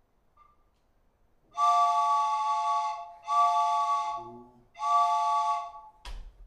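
A wind instrument blown in three long held blasts, each a chord of several notes sounding together, with short gaps between them. A sharp clap comes at the very end.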